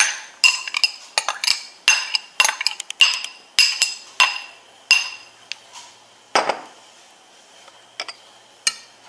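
Glass kitchenware clinking as diced jicama is knocked out into a glass mixing bowl: a quick run of sharp taps, about two a second for the first five seconds, each ringing briefly, then a few scattered knocks.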